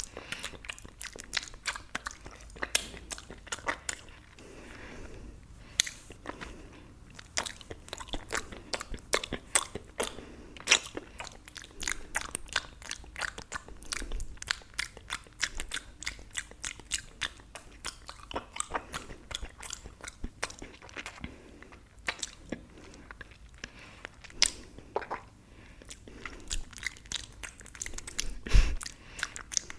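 Close-miked finger sucking and licking: a quick, uneven run of wet mouth clicks, smacks and pops. A louder low thump comes near the end.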